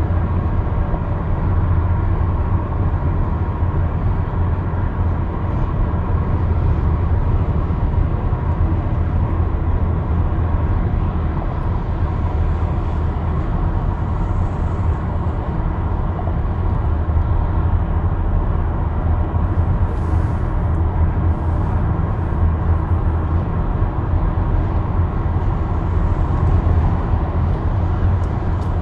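Steady low rumble of road and engine noise heard inside a moving car's cabin on a highway.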